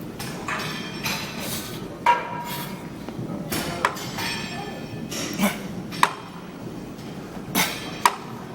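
Metal gym weights clanking: four sharp metallic clanks, about two seconds apart, with softer rustling bursts between them.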